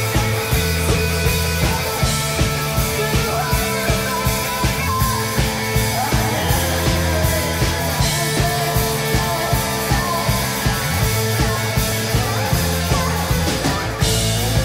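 Live rock band playing: a woman singing over electric guitar, bass, keyboards and drums with a steady beat, heard through the room of a small club.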